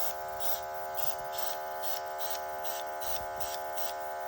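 Small airbrush compressor running with a steady buzzing hum, and a hiss of air that pulses about two or three times a second.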